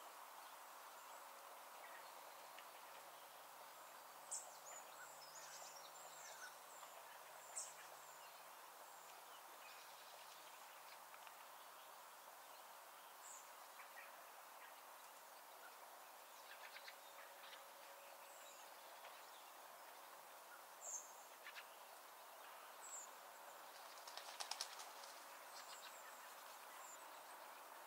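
Faint open-countryside ambience: a steady soft hiss with scattered short, high bird chirps every few seconds and a small flurry of them near the end.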